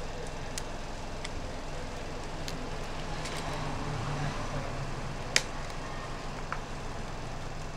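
A few sharp plastic clicks as picks pry along the seam of a Samsung Galaxy Tab A tablet's case, the loudest about five seconds in, over a steady background hum.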